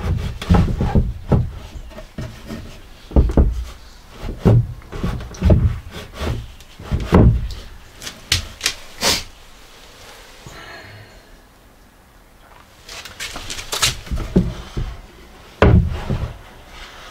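Pine board knocking and bumping against the van wall and the backing board as it is forced into a tight fit behind it: irregular wooden thuds and knocks, with a quieter lull around the middle.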